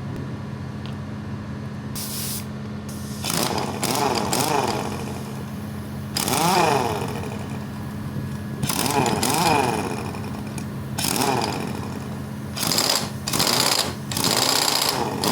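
Pneumatic impact wrench (air gun), freshly rebuilt with new internal parts, triggered in about seven short bursts. Each burst spins up and back down in pitch, over a steady hum.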